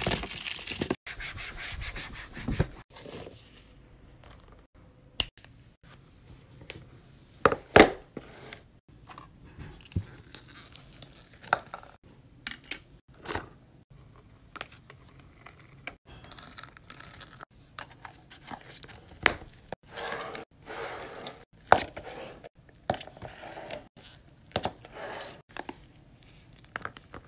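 For the first couple of seconds, a gloved hand stirs a big tub of loose gummy sweets, making a rustling crinkle. After that come scattered clicks, taps and soft scrapes of plastic tongs and sweets against clear plastic tubs and cups as sour strings and gummies are picked up and dropped in.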